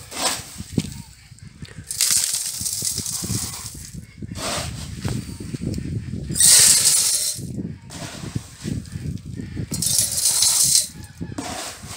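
Dry homemade chicken feed poured from a plastic tub into a galvanized metal tube feeder, a hissing rattle of grain pouring onto metal. It comes in three pours, a few seconds apart, with scooping and handling noise in between.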